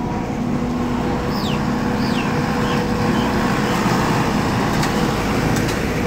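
A motor running steadily with a constant low hum. A few short, high, falling chirps come between about one and three seconds in.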